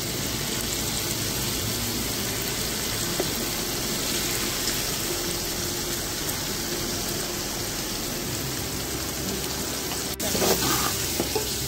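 Peas and spices frying in hot oil in a pot, sizzling steadily. One sharp click about ten seconds in.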